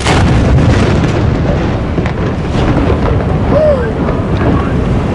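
A sudden loud boom, followed by several seconds of heavy, steady rumbling.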